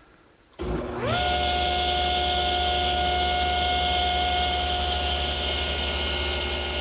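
Table saw switched on about half a second in, its motor spinning up quickly and then running steadily at full speed with a hum and whine. In the second half a cypress board pushed along the miter gauge meets the blade, and the sound takes on extra high tones.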